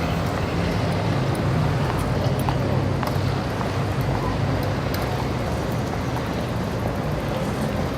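Indian city street traffic: a steady mix of car, motorbike and auto-rickshaw engines running and passing, with a low engine hum throughout and faint voices in the background.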